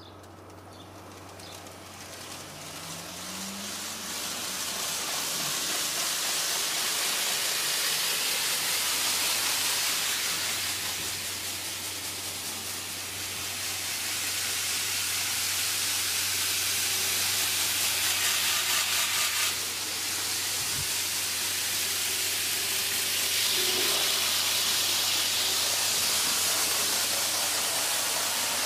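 Model trains running on a layout: a steady rushing hiss that builds over the first few seconds, with a low steady electrical hum beneath.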